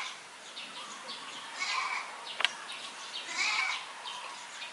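Goat bleating hoarsely, two raspy calls about a second and a half apart, with a sharp click between them.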